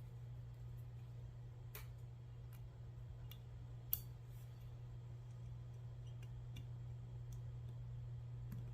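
A few faint, scattered clicks of small metal pistol parts being handled during disassembly of a Girsan 2311, the sharpest about four seconds in, over a steady low hum.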